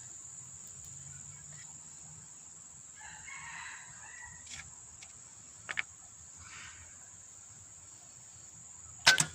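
A rooster crowing in the distance, about three seconds in and again more faintly later, over a steady high insect drone. A few short clicks break in, the loudest a sharp cluster near the end.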